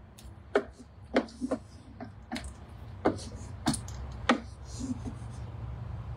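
Wooden spoon stirring soup in a Thermomix's stainless-steel bowl, knocking against the bowl about seven times at irregular intervals, over a low steady hum.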